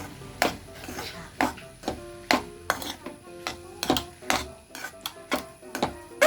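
A spoon knocking and scraping against a pan while stirring boiled vermicelli into masala, about two knocks a second, over background music.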